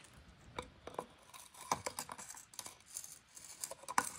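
Faint, irregular clicks and light scraping of a metal tool and metal engine parts being handled and probed.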